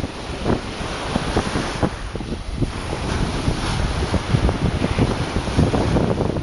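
Small waves breaking and washing up a pebble shore, with wind buffeting the microphone in frequent low thumps.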